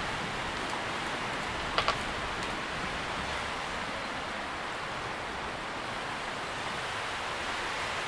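Wind moving through tree leaves: a steady rustling hiss, with two quick clicks close together about two seconds in.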